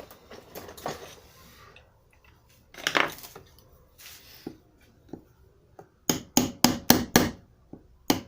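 Hand tools knocking and scraping on steering-rack parts: a short scrape about three seconds in, then a quick run of about six sharp knocks, roughly five a second, and one more knock near the end.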